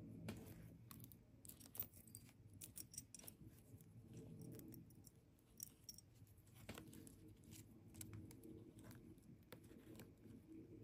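Faint, scattered light clicks of small gemstone beads being handled and set down while a bead pattern is laid out, thickest a couple of seconds in.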